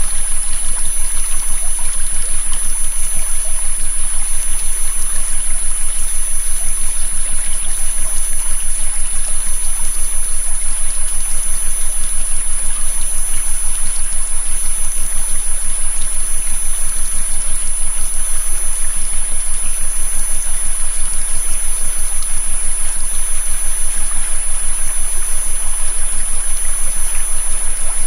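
Flowing river water, an even rushing sound, layered with steady synthetic tones: high-pitched tones that never change and a low hum underneath.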